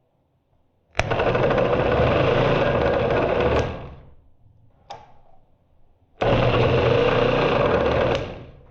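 Electric starter motor from a Johnson 60 hp two-stroke outboard, freshly greased and run off a battery on the bench: it spins up twice, about two and a half seconds and then about two seconds, each run starting abruptly and winding down after. A short click falls between the two runs.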